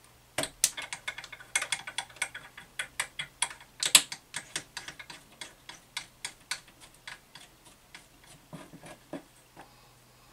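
Quick, irregular clicks and light plastic-and-metal knocks from seating the resin vat on an Elegoo Saturn 8K resin printer and turning its thumbscrew by hand. The loudest click comes about four seconds in, and they thin out toward the end.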